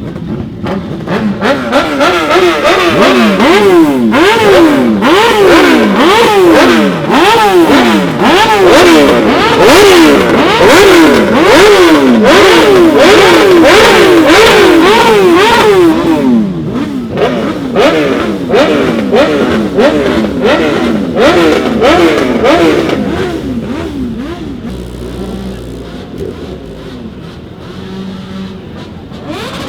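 Motorcycle engine revved hard again and again, each throttle blip climbing quickly and falling back, about one a second. After about sixteen seconds the revving gets weaker and dies down.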